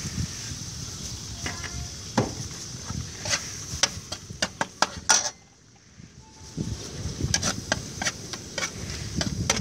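Metal spatula scraping and clacking against a steel wok as meat fries in it with a steady sizzle; repeated sharp scrapes, with a brief lull just past halfway.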